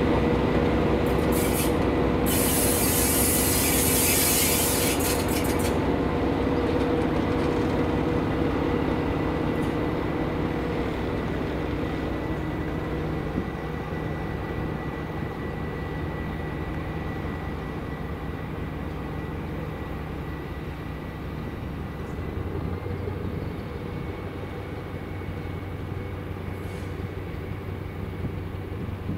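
SM42 diesel shunting locomotive hauling loaded hopper wagons at walking pace, its engine droning steadily along with the rumble of the wagons' wheels on the rails, growing fainter as the train moves away. A loud hiss sounds from about a second in and lasts a few seconds, and a thin steady high whine runs underneath.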